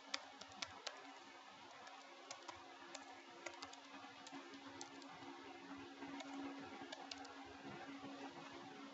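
Faint typing on a computer keyboard: scattered keystroke clicks over a steady low hum and hiss.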